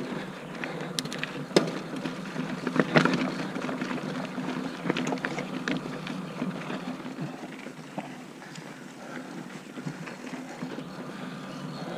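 Mountain bike riding along a dirt trail: steady tyre and wind noise, with sharp rattles and knocks from the bike over bumps, the loudest about three seconds in.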